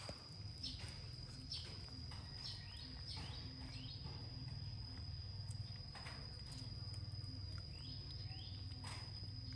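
A cat eating soft wet rice: irregular close-up chewing clicks and smacks, a few each second. A steady high-pitched whine and a low rumble run underneath.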